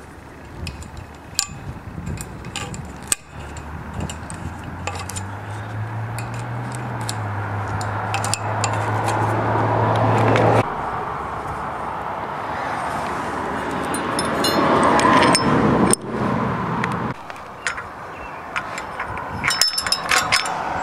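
Light metallic clinks and taps of chain-link fence fittings and tie wires being handled against a galvanized steel post. Behind them a low hum and a rushing noise swell and cut off suddenly about ten seconds in, then swell again briefly.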